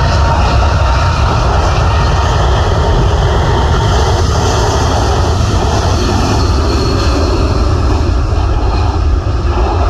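Steady, loud jet engine noise from a Virgin Atlantic Airbus A350-1000 with Rolls-Royce Trent XWB engines moving along the runway, with a deep rumble underneath.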